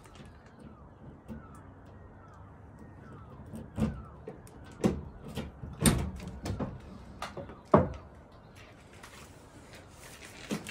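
Mazda RX-7 FB's bridgeported rotary engine on a cold start, heard at the exhaust, firing unevenly. Sharp, irregular pops come from the exhaust, the loudest about four, six and eight seconds in, before it settles into a rougher steady run near the end.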